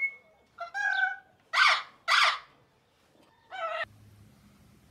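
Recorded parrot calls: four separate squawks, one about half a second in, two close together around two seconds in, and a shorter one a little past three seconds.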